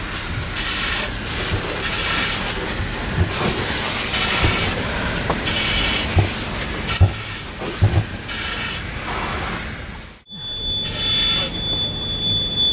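Fire hose nozzle spraying a water jet with a steady hiss, with regular rasping breaths about once a second through a firefighter's breathing-apparatus mask and a few dull knocks. About ten seconds in the hiss cuts off and a steady high tone sounds.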